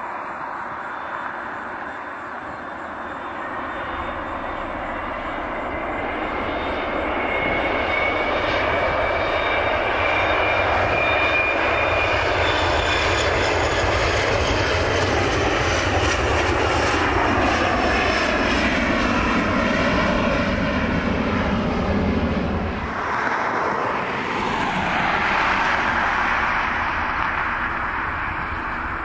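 Embraer ERJ-145 regional jet's two rear-mounted turbofans at takeoff power, growing louder with a rising turbine whine as it runs down the runway and lifts off. About three quarters of the way through, the jet noise drops away suddenly, then a jet roar builds again.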